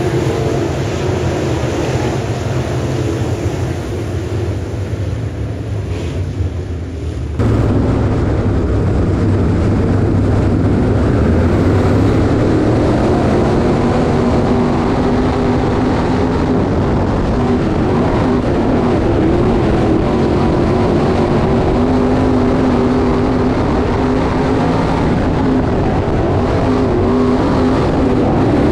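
Dirt late model race cars with 604 crate V8 engines running at speed, their engine note rising and falling as they lap the track. About seven seconds in the sound cuts abruptly to a louder stretch.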